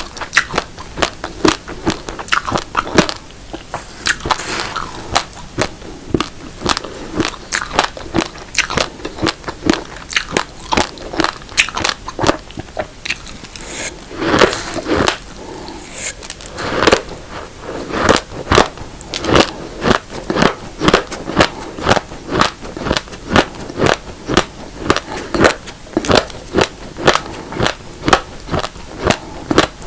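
Raw uncooked rice, a mix of black and red grains, being chewed: hard grains cracking between the teeth in many sharp crunches. In the second half the crunches settle into a steady chewing beat of about two a second.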